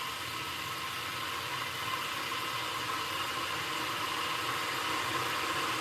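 Steady hiss and rumble of water heating on the boil, growing slightly louder toward the end.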